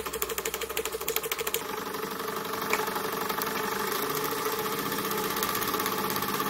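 Retrol miniature live-steam engine running fast, its exhaust beating in a rapid, even rhythm. About a second and a half in, the sound changes to a smoother, steadier run.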